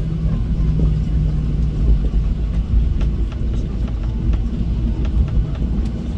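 Cabin noise of a Boeing 737 airliner taxiing: a steady low rumble from inside the passenger cabin, with a few faint ticks here and there.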